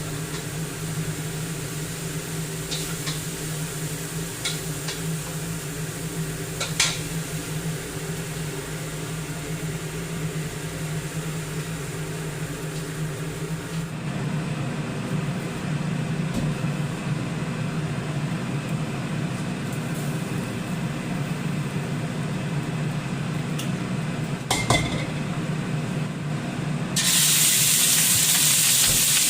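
Food frying in a pan while it is stirred, over a steady low hum. A couple of short clanks come from the utensils. Near the end a much louder sizzle starts suddenly, as ingredients or liquid meet the hot oil.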